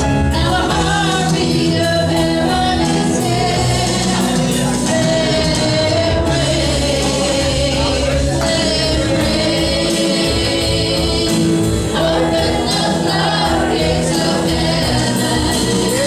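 Gospel worship song with group singing over instrumental accompaniment, continuous and loud.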